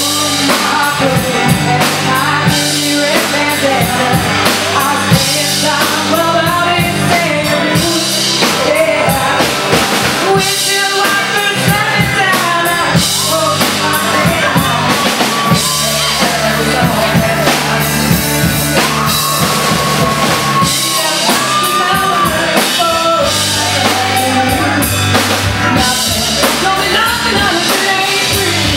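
Live rock band playing: a woman sings lead into a microphone over electric bass and a drum kit with cymbals.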